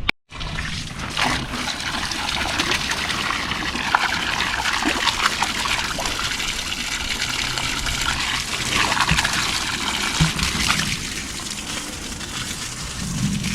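Water pouring and splashing steadily, a dense hiss of running water that starts suddenly just after the start and cuts off at the end.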